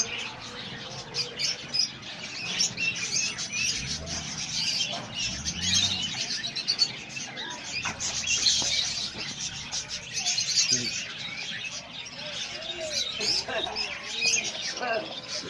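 Many small birds chirping and twittering continuously, their calls overlapping.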